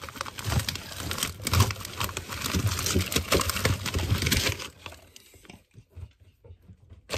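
Someone rummaging through a packed freezer: plastic bags and foil-wrapped packages crinkling and frozen items knocking together. It is busy for about four and a half seconds, then drops to fainter handling near the end.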